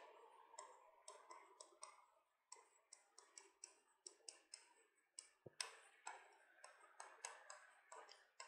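Chalk tapping and scratching on a blackboard as words are handwritten: a faint, quick, irregular run of small clicks and taps, several a second, with a slightly firmer knock a little past halfway.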